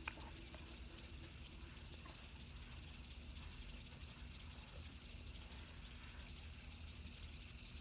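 Faint, steady whirring hiss of a fidget spinner's ball bearing spinning freely, with one small click right at the start.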